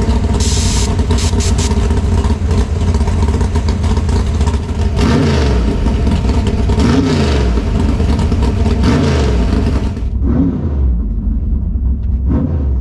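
Drag-race car engine running at a loud, lumpy idle, blipped several times in the second half so the revs rise and fall; about ten seconds in the sound turns duller and muffled.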